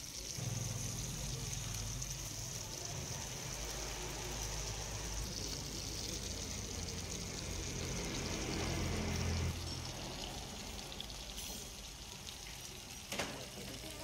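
Masala-coated red snapper frying in oil on a flat tawa griddle, sizzling steadily. A low hum runs under the sizzle until about nine and a half seconds in, and a single knock sounds near the end.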